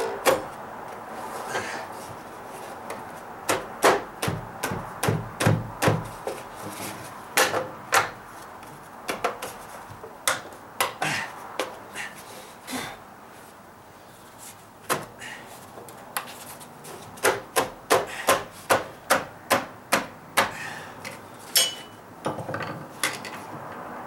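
Deck flashing and deck tiles being worked into place by hand: irregular sharp knocks and clicks with some rubbing and scraping, in clusters, with a quieter stretch in the middle.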